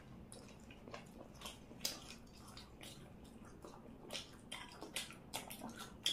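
Faint wet eating sounds: mouth smacks and chewing, with scattered small clicks, as chicken curry and fritters are eaten by hand.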